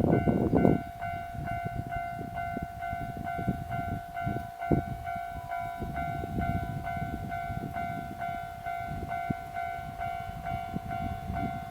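Japanese level crossing's electronic warning bell dinging over and over in an even rhythm, while a Kintetsu train rumbles past with rattling and knocking from its wheels. The rumble is loudest in the first second, with a sharp knock near the middle.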